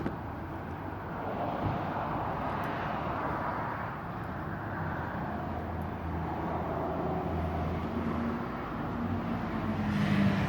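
Steady outdoor background noise with the rumble of road traffic.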